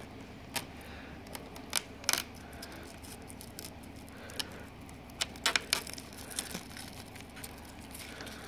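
A sharp screwdriver prying staple pins out of a recliner's fabric backing: scattered sharp metal clicks and scratches, with a quick cluster of clicks about five seconds in.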